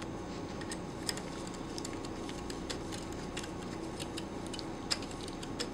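Scattered faint clicks and light taps of metal pump parts being handled and fitted by hand, over a steady room hum.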